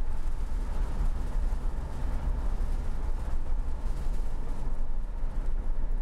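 Car driving, heard from inside the cabin: a steady low road rumble.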